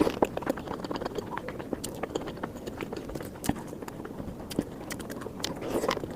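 Close-miked eating sounds from a person eating egg curry: wet chewing, lip smacks and small mouth clicks in an irregular, steady run.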